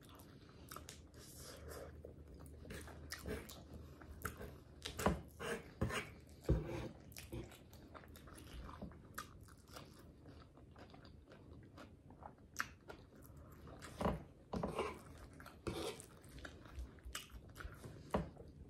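Close-up chewing and mouth smacking of a person eating chicken Alfredo ramen, with irregular clicks.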